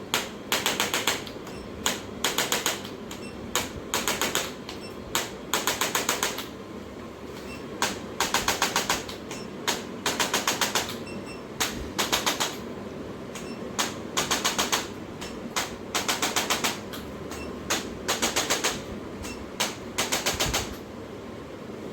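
A handheld percussion adjusting device tapping in short rapid bursts: each burst is a fast, even run of clicks lasting under a second, repeated every second or two.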